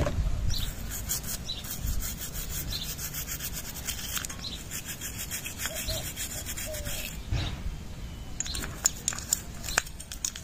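Toothbrush bristles scrubbing a motorcycle carburetor float bowl in quick back-and-forth strokes, working dirt and old gasket glue off the gasket seat. The scrubbing stops about seven seconds in, followed by a few light taps near the end.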